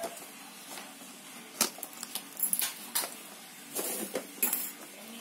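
Small cardboard product box being handled for opening: a string of short scrapes and light taps, clustered between about one and a half and four and a half seconds in.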